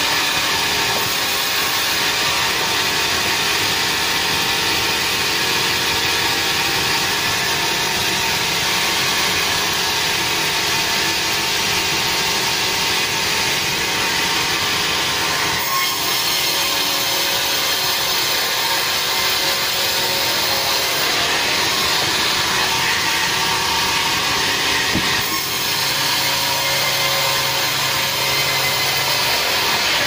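Sawmill saw running under power and cutting lengthwise through a large log, a loud steady whine and rasp of blade in wood.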